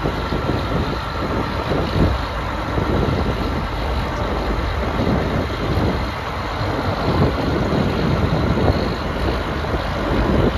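A John Deere 9520T tracked tractor's diesel engine idling steadily, under an uneven low rumble that comes and goes.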